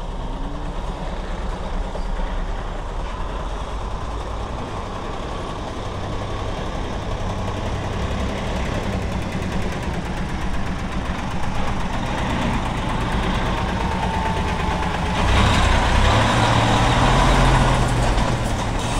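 Hino heavy truck's 13-litre diesel engine running at low speed as the truck and its full trailer drive slowly up and pass close by. The engine hum and rolling noise grow steadily louder and are loudest near the end as the rig goes past.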